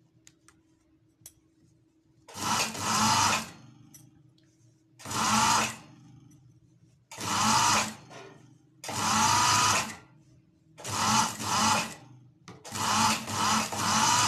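Electric sewing machine stitching in short runs: six bursts of about a second each, with pauses between them while the fabric is repositioned. A low steady hum carries on in the pauses.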